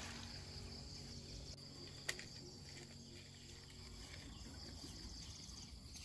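Faint, steady chirring of insects in the open countryside, with one sharp click about two seconds in.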